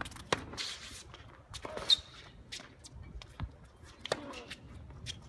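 Tennis rally on a hard court: a racket strikes the ball several times, the loudest hit about two seconds in, with shoes scuffing on the court between shots.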